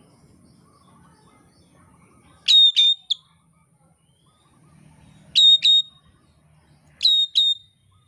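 Oriental magpie-robin (kacer) calling three times a couple of seconds apart. Each call is two quick notes that slide steeply down into a short held high whistle.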